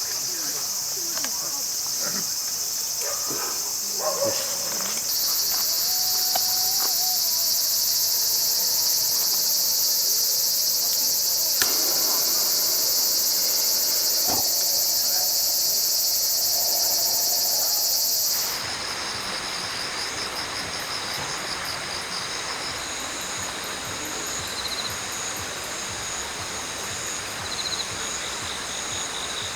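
Autumn crickets chirping in a dense, steady high-pitched chorus, with a few light clicks in the first seconds. About two-thirds of the way through, the sound changes abruptly to a thinner chorus of pulsed insect trills over a steady hiss.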